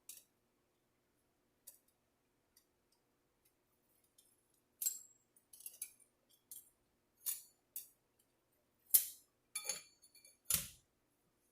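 Transmission clutch plates, steel and fiber, clinking against each other and the drum as they are handled and stacked into a 46RE direct clutch pack: a run of about eight sharp metallic clinks, spaced irregularly, starting about five seconds in.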